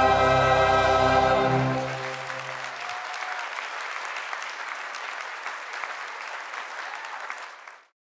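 A choir with accompaniment holds a final sustained chord, one voice wavering with vibrato, which ends about a second and a half in. Audience applause follows and fades out near the end.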